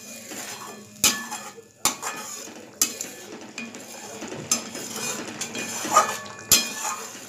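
Flat metal spatula stirring thick yogurt curry masala in a metal kadai. It scrapes steadily around the pan and strikes the metal sides with about six sharp clinks.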